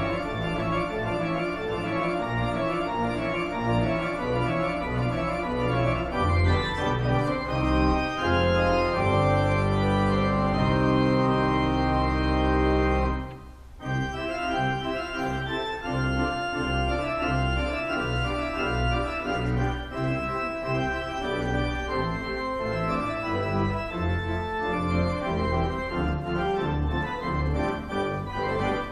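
Church organ playing slow sustained chords over low bass notes. The music breaks off briefly about halfway through, then goes on.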